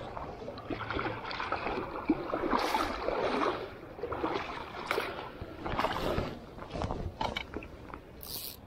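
Water splashing and sloshing in uneven bursts.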